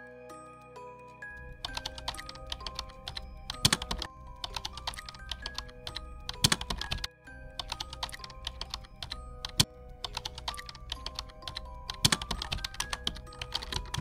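Keyboard typing sound effect, a rapid run of clicks starting about a second in, over background music of held melodic notes.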